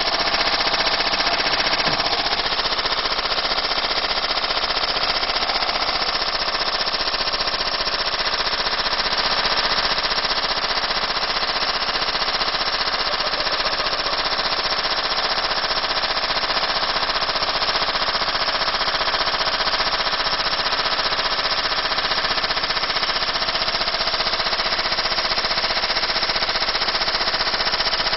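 A brick inside a running washing machine drum, banging against the drum in a fast, unbroken hammering rattle that holds steady.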